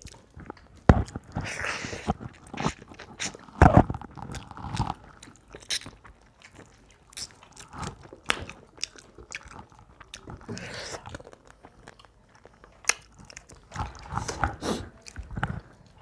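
Close-up eating sounds of a rice-and-curry meal: irregular crunching and chewing of crisp food, with a couple of louder thuds about one and four seconds in.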